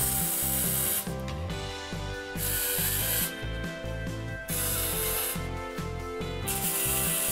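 Wire-feed (MIG) welder tack-welding a steel box-section frame: four separate bursts of arc noise, each about a second long. Background music with a steady beat plays throughout.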